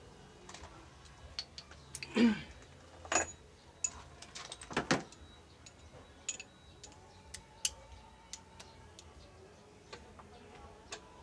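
Scattered clicks and light knocks from the engine air cleaner housing and filter being handled, with the loudest knocks about two, three and five seconds in and a short falling squeak at about two seconds.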